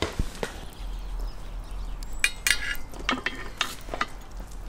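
Metal kebab skewers loaded with lamb clinking against each other and the steel rim of a charcoal mangal as they are laid across the coals: a series of sharp metallic clinks, the loudest about two seconds in.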